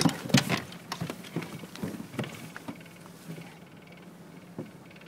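A search and rescue dog sniffing hard in quick, short snuffs with its nose down at the water, working for scent. The sniffing is busiest in the first half and thins out after that, with one more snuff near the end.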